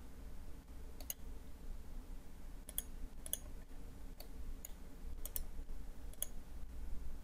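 Computer mouse buttons clicking: about nine short, sharp clicks at uneven intervals, over a low steady hum.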